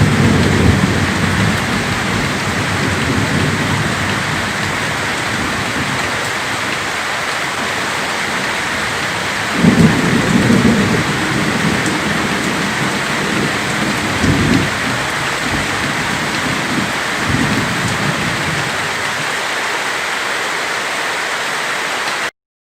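Steady downpour in a severe thunderstorm, with rolls of thunder rumbling over it: a louder peal about ten seconds in and smaller rumbles a few seconds later. The sound cuts off suddenly just before the end.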